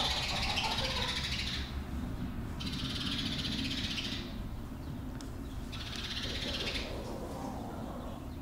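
Repeated high, buzzing animal trills, each lasting a second or two and coming about every three seconds, over a steady low rumble.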